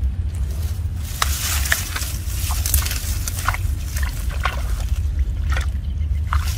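Muddy water sloshing and splashing in short, irregular strokes over a steady low rumble.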